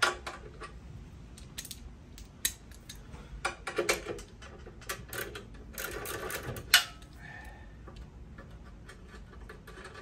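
Hand socket ratchet clicking in short runs, with scattered metal clinks, as bolts are worked loose. The densest run of clicks comes about five to seven seconds in and ends in one sharp click.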